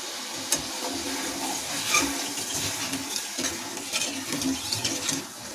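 Steel ladle stirring hot sugar syrup in an aluminium kadhai, with scattered light clinks and scrapes of the ladle against the pan over a steady hiss.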